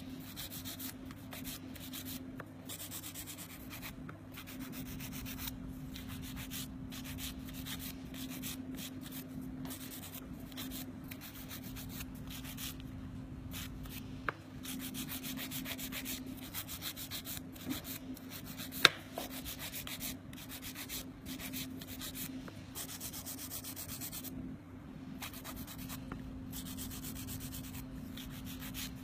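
Handheld nail file rasping back and forth over artificial nail tips in quick, continuous strokes, shaping the tips. A steady low hum runs underneath, and there is one sharp click about two-thirds of the way through.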